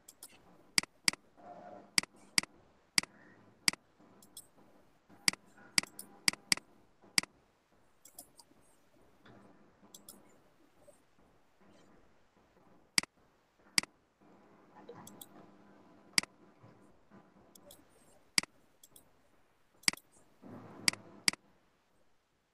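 Computer mouse clicking: sharp, irregular clicks, some in quick runs of two or three.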